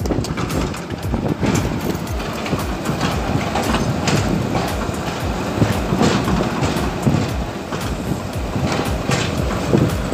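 Kobelco SK07 hydraulic excavator working close by: its diesel engine running with a steady rumble, under frequent irregular clanks and knocks from the machine as it digs in the mud.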